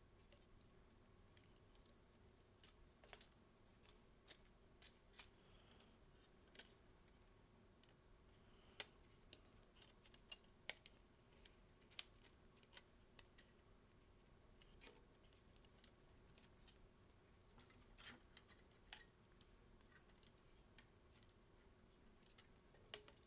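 Near silence with faint, scattered small clicks and taps from handling the small parts of a mirrorless camera as a ribbon cable is worked through a hole. A faint steady hum runs underneath.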